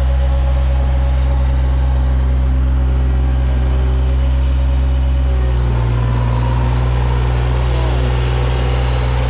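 New Holland LS140 skid steer engine running steadily; its note shifts lower-to-higher about halfway through, with faint gliding whines near the end.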